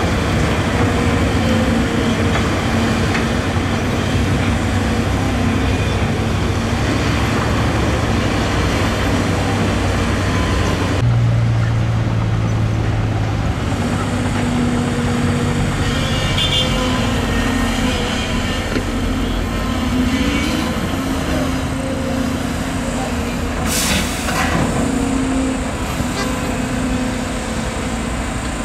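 Heavy diesel engines of a Volvo EC250DL excavator and a tipper dump truck running steadily under work. The engine note changes abruptly a little over a third of the way in, and there is one brief sharp noise about three-quarters of the way through.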